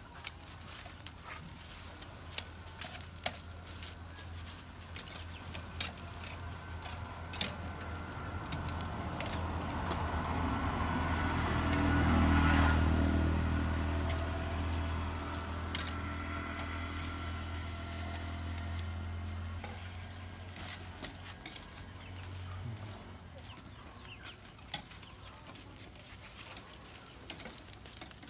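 A motor vehicle passes: its engine grows louder to a peak about twelve seconds in, then fades away, over a steady low hum, with scattered sharp clicks and knocks.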